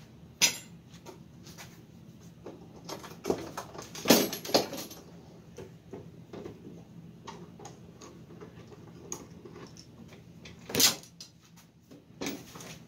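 Bar clamps and a wooden drawer handled on a workbench: scattered knocks and clacks as the clamps are worked and the drawer is moved, loudest about four seconds in and again near the end.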